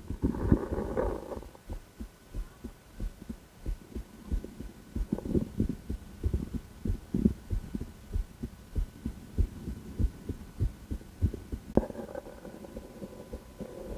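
A woman's heartbeat heard through a stethoscope, a quick, regular run of low lub-dub thumps. A scraping rub cuts in about a second in and again near the end.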